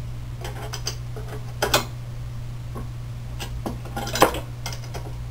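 Small wrench and nuts clinking and clicking on steel threaded rod as the nuts holding a printed plastic frame vertex are tightened: a string of irregular metallic clicks, the loudest about four seconds in. A steady low hum runs underneath.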